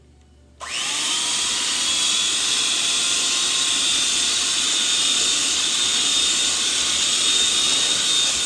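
Electric hand mixer switched on about half a second in, spinning up and then running steadily with a high whine as its beaters cream butter and sugar.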